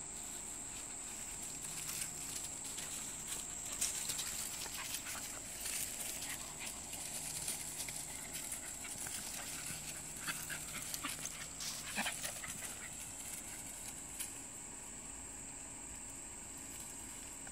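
Two small dogs play-fighting on leaf litter and grass: scuffling and rustling with panting and a few short whines. The scuffling is busiest in the middle and dies down near the end.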